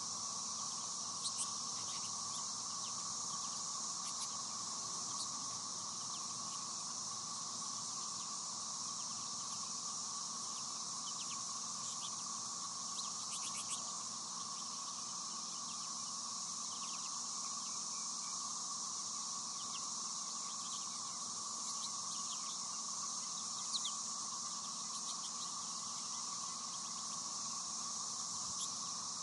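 Steady high-pitched insect drone with a lower steady hum beneath it. Short chirps of American goldfinches at the feeders are scattered over it.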